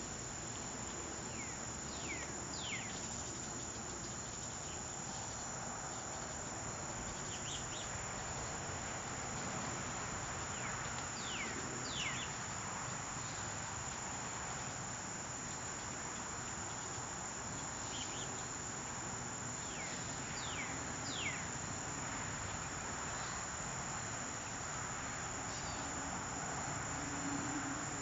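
Steady chorus of crickets trilling, with a pair of brief falling chirps every several seconds.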